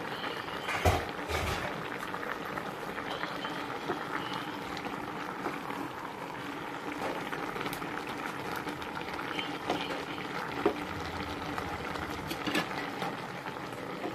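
A stainless steel pot of vegetables and broth bubbling steadily on the stove, with a few sharp knocks and scrapes as a wooden spatula stirs it.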